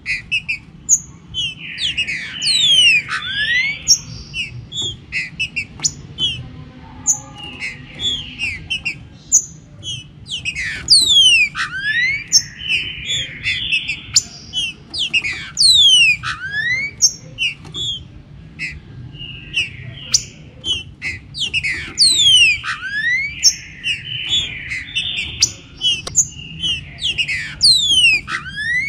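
Green-winged saltators (trinca-ferro) singing and calling: a dense run of quick whistled notes gliding up and down, mixed with harsh chattering phrases, over a steady low background rumble.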